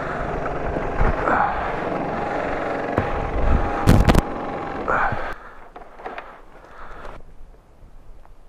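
Vespa 150 LX scooter's single-cylinder engine running steadily with wind noise, with a few sharp knocks about four seconds in. After that it drops away to quiet, with a few light clicks.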